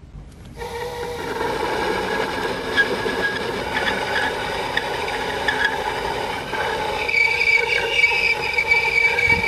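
Small DIY benchtop lathe in an aluminium case starting up about half a second in and running with a steady whine while its tool turns 15 mm aluminium stock. From about seven seconds in a higher squealing tone from the cut joins.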